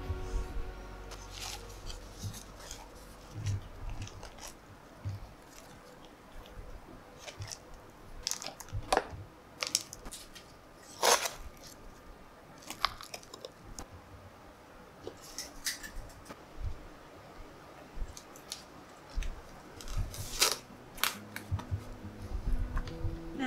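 Hands crumbling, scooping and pressing loose potting soil while repotting plants: soft rustling broken by irregular crisp crunches and crackles.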